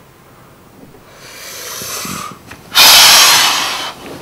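A man's heavy breathing close on the microphone: a breath drawn in that swells for about a second, then a very loud, sudden sigh out just before the three-second mark that fades away over about a second.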